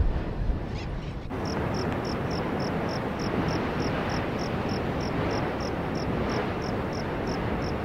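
Steady surf-like rushing from Masaya volcano's active crater, with an insect chirping evenly about three or four times a second. For the first second or so there is wind buffeting the microphone, which cuts off abruptly.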